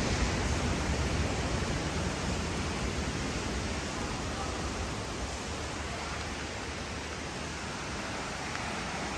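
Steady rush of Jeongbang Waterfall, easing slightly in level after the first few seconds.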